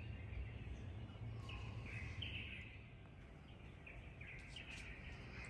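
Faint songbirds chirping outdoors: short calls, a few around two seconds in and several more in the last couple of seconds, over a steady low background hum.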